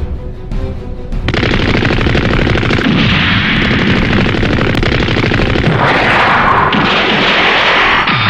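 Dubbed-in classic Gundam-style battle sound effects: rapid machine-gun fire starts about a second in and keeps going, with a sweeping whoosh that rises and falls near the end.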